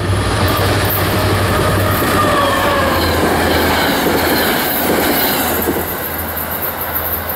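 Diesel-hauled commuter passenger train passing close by at speed, a loud steady rush and clatter of wheels on rail with a low hum underneath. Several faint tones fall in pitch as it goes by.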